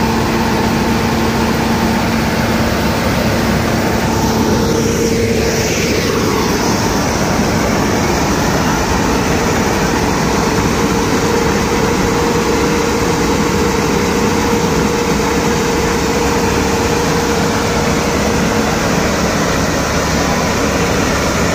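John Deere W50 combine harvester running while its unloading auger discharges soybean grain: a loud, steady machine drone with a steady hum, which shifts in pitch about five seconds in.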